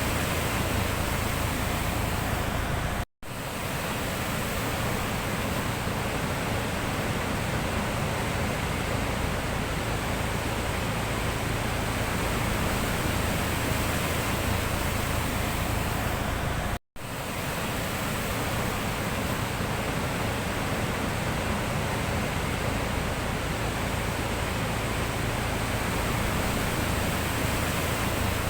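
Sea surf making a steady, even wash of noise, broken twice by a brief instant of silence.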